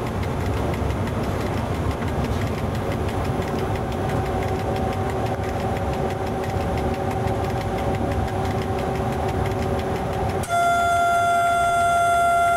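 Cab of an FS E.656 electric locomotive running along the line: steady rumble of the train in motion, with a hum of a few steady tones setting in about three seconds in. Near the end a train horn starts sounding, one loud steady note held to the end.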